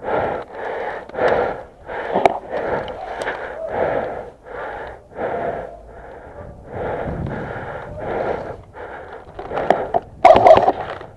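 A person breathing hard and panting in quick, even breaths about twice a second. A louder voiced gasp comes near the end.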